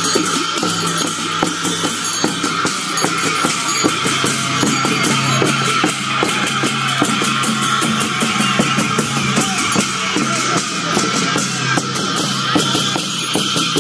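Drum-and-cymbal music for a lama dance, struck in a fast, even beat over a steady held tone.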